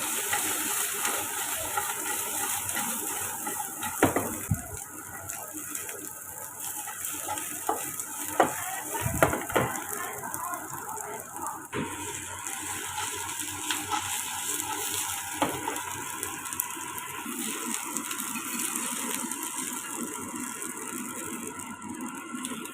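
Food stir-frying in a pan: steady sizzling, with a spatula knocking and scraping against the pan now and then, the sharpest knocks about four and nine seconds in.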